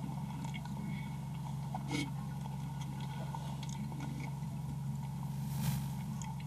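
Steady low hum of room tone with faint scattered clicks and rustles of people handling and eating flatbread.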